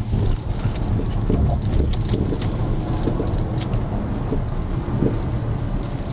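Patrol car's road noise as it rolls slowly along the interstate shoulder and slows to a stop: a loud, steady low rumble of tyres and engine with scattered ticks and knocks.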